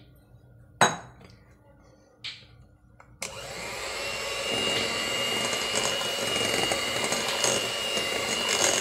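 A single sharp knock, then a few seconds in an electric hand mixer switches on and runs steadily with a high whine, beating cake batter.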